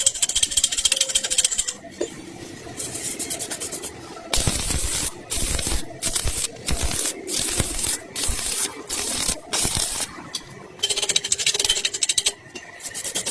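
Electric welding arc crackling and sizzling, struck and broken again and again in many short bursts of about a second, with brief gaps between them.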